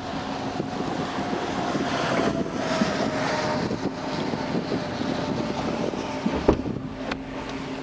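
Highway traffic passing with wind on the microphone, one vehicle going by with a slowly falling whine, over a steady low hum. A single sharp knock about six and a half seconds in.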